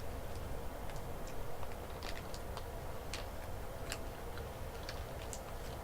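Granola bar wrapper being handled and opened, with scattered small crinkles and clicks, most of them between about two and five seconds in.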